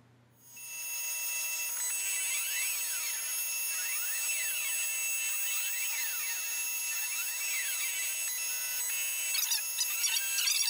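CNC-converted Sieg mini mill running: a steady motor whine from the spindle, with stepper-motor whines rising and falling in pitch over and over as the table axes speed up and slow down. Near the end some irregular rattling comes in.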